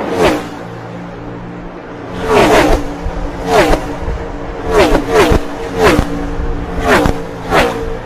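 NASCAR stock cars' V8 engines at full throttle, passing a trackside microphone one after another. Each car is a quick whine that drops sharply in pitch as it goes by, about ten passes in all. There is a quieter gap in the first two seconds.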